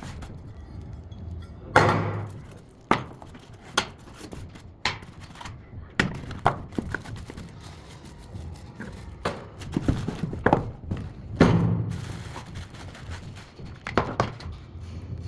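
Irregular knocks, clicks and thuds of a new electric planer and its packaging being handled and set down, with a few heavier thuds, the loudest about two seconds in and again near twelve seconds. The planer's motor is not running.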